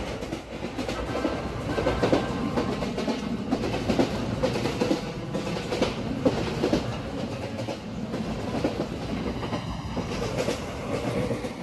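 Indian Railways ICF passenger coach running along the track, with the wheels knocking out a clickety-clack over the rail joints under a steady rumble, heard from the open coach doorway.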